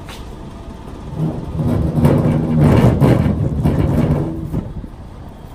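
A motor vehicle's engine passing close by: it swells up about a second in, is loudest in the middle and fades away before the end. A few knocks sound on top of it.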